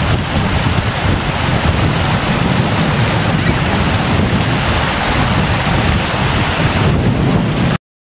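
Fast water rushing and churning over rocks, with wind buffeting the microphone; the sound cuts off abruptly near the end.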